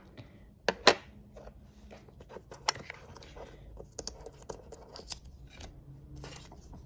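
Small paper stickers being handled and dropped into a clear plastic case: light rustling with scattered small clicks and taps, and a few sharper clicks, the loudest about a second in.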